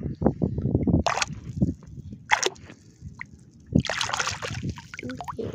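A hand sloshing and splashing in shallow water while groping through the bottom mud for clams. There is churning at first, short splashes about a second in and again near halfway, and a longer spell of splashing around four seconds in.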